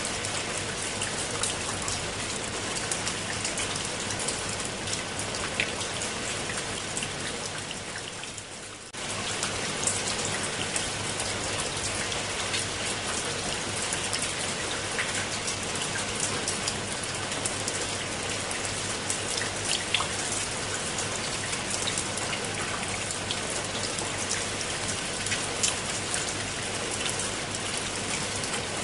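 Steady rain falling on leaves and wet stone steps: a dense, even patter with individual drops ticking through it. About nine seconds in the sound fades briefly, then cuts back in abruptly.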